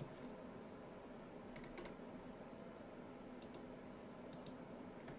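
Faint computer mouse clicks, a few quick pairs spread through, over a low steady hum of room tone.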